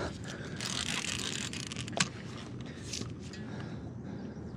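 Casting reel's gears and drag clicking under the pull of a hooked sturgeon, in uneven bursts, with one sharp click about two seconds in.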